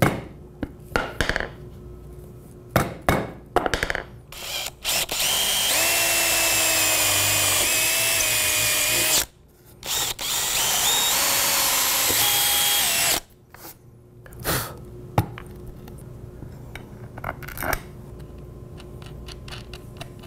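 Cordless drill boring through a plywood base, in two runs of about four and three seconds with a short break between. A few sharp clicks and taps come before the drilling and a few light knocks after it.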